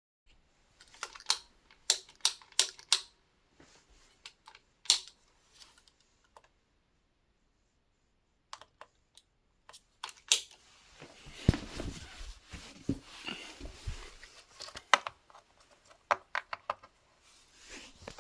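Plastic button clicks on an electric scooter, pressed again and again in quick runs, with handling rustle and low knocks in between, as someone tries to power on a scooter that won't turn on.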